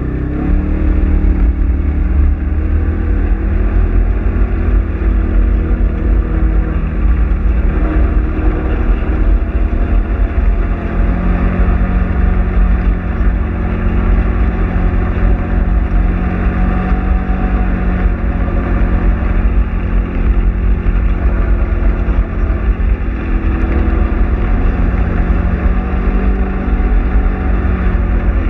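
Polaris RZR side-by-side's engine running under steady throttle on a gravel track, its pitch holding fairly level with small rises and dips, over a heavy low rumble.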